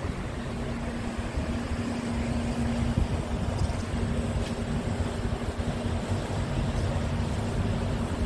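Scania truck's diesel engine idling steadily, a low rumble with a steady hum over it that fades out near the end, mixed with wind buffeting the microphone.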